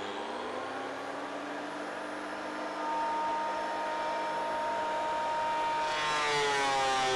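Makita 2012NB thickness planer with its straight-knife cutter head running steadily, growing louder about three seconds in. About six seconds in its pitch falls and the sound turns harsher as the knives bite into a board of very hard ironwood and the motor loads up.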